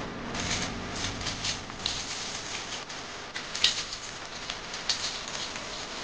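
Water splashing and dripping in irregular bursts as the glass door of a front-load washing machine is rinsed with a mug of water and wiped down, with one sharper knock about three and a half seconds in.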